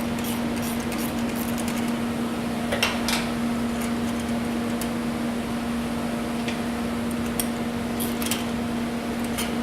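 Light metallic ticks and clinks of a wrench working the 9/16 bolts loose on a shaker screen's band clamp, over a steady hum that runs throughout.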